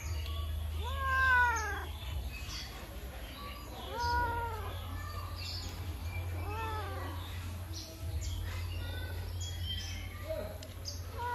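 A domestic cat meowing: three drawn-out meows a few seconds apart, each rising and then falling in pitch, with a fourth starting at the very end. A steady low hum runs underneath.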